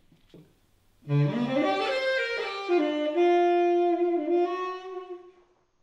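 Background film music: a slow melody of long held notes enters about a second in and fades away near the end.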